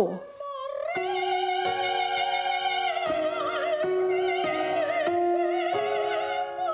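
A soprano singing operatically: she slides up into one long high note and holds it with a wide, even vibrato. Under the voice, accompaniment chords change every second or so.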